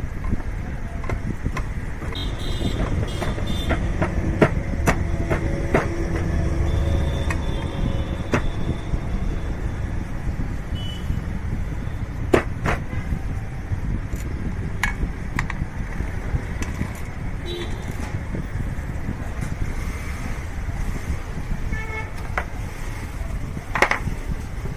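Steady low rumble of street traffic with brief vehicle horn toots, mostly in the first few seconds and again near the end, and many short sharp clicks scattered throughout.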